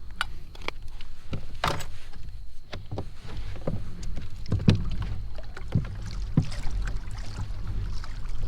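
Pedal kayak under way on the water: a steady low rumble with irregular knocks and clicks against the hull, roughly one every half second to a second.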